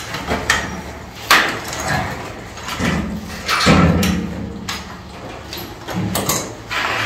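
Hand pipe-threading die being worked onto a steel heating pipe with its handle: irregular metallic knocks and scrapes, a few louder clanks among them.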